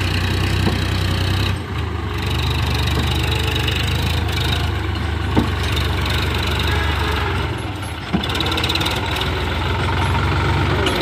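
Sonalika DI-50 tractor's diesel engine running steadily as it pulls a trailer loaded with sand over soft ground. The engine note dips briefly about a second and a half in, with a couple of faint knocks later on.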